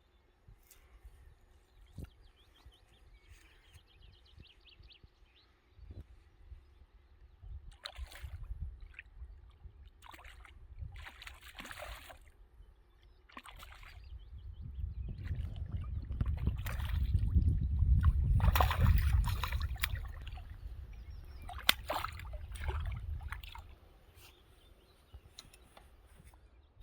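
Water sloshing and splashing in short bursts, over a low rumble that swells through the middle and fades away.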